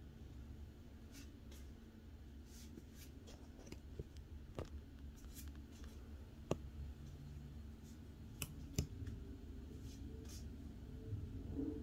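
Faint rustling and scattered light clicks of Pokémon trading cards being handled and flipped through one at a time.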